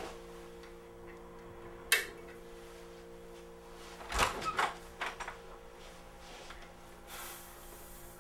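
Someone moving about a quiet room and handling things, over a steady low hum. There is a sharp click about two seconds in, a heavier knock with a rattle around four seconds, a few lighter knocks just after, and a short hiss near the end.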